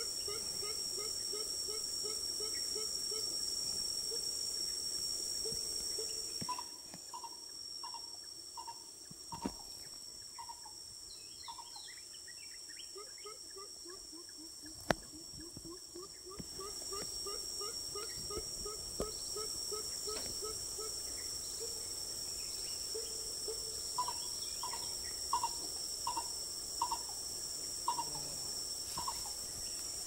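A coucal calling in long series of quick low hoots, about four a second, that stop after a few seconds and start again midway. Between the series a second, higher bird call is repeated, and one sharp click comes in the middle. A steady high drone of insects runs underneath.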